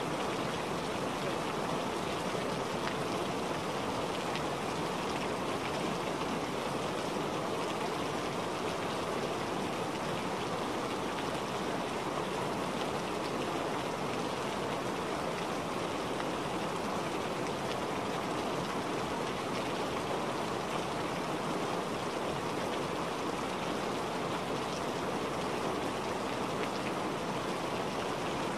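Steady rain sound, even and unchanging in level: the calm background track of a subliminal audio.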